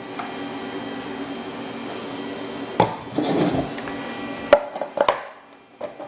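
Hard knocks and a brief scrape as a large 3D-printed Terminator head is handled and turned around, with clunks about three, four and a half and five seconds in, over a steady room hum.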